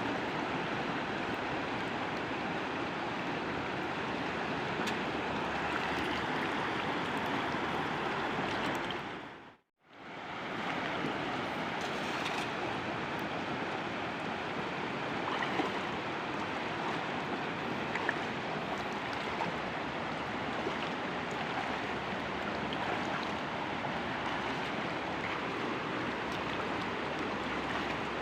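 Steady rushing of river water. It dips to silence and comes back about ten seconds in, with a few faint clicks later on.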